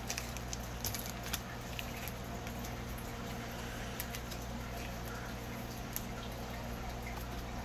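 Trading cards being handled, giving a few soft clicks and rustles over a steady low hum.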